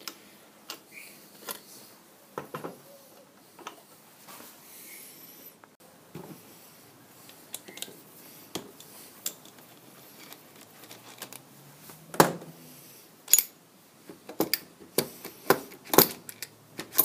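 Steel parts of a lathe bearing hub assembly clinking and clicking as they are handled and unscrewed by hand. Light scattered clicks for most of the time, then a quick run of sharper metal knocks in the last five seconds.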